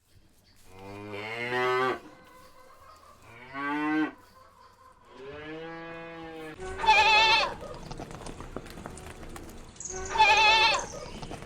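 Cattle mooing: three drawn-out moos in the first six seconds. Then two shorter, higher, wavering animal calls follow a few seconds apart.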